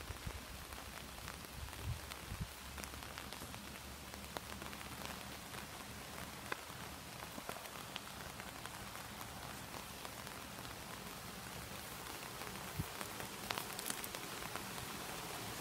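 River water rushing steadily, a constant hiss with scattered faint ticks and splashes.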